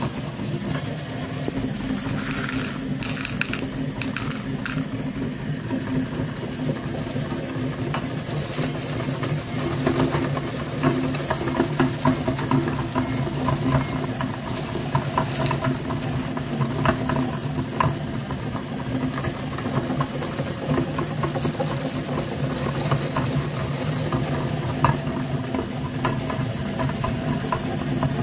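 Electric meat grinder running steadily, its motor humming, with crackling and crunching as small hard pieces are ground through the plate. The crunching gets busier after about nine seconds.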